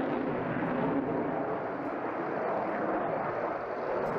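Jet noise from a Eurofighter Typhoon's twin Eurojet EJ200 turbofan engines as the fighter manoeuvres in its display, a steady rushing noise at an even level.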